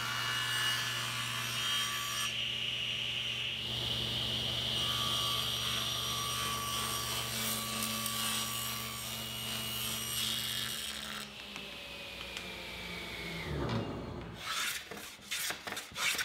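Table saw resawing a cedar board: the blade runs with a steady hum and whine, then spins down and fades after about eleven seconds. Near the end, a hand plane takes several quick strokes along the cedar strip, shaping a bead molding.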